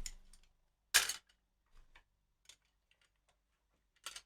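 A single short, sharp clack about a second in, followed by a few faint clicks, with quiet in between.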